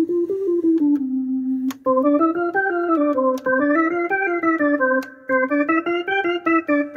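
Wurlitzer Spirit home organ's upper-manual synthesizer voice playing a single-note melody, the notes stepping up and down. A little under two seconds in, the tone turns brighter and fuller as another voice tab is switched in.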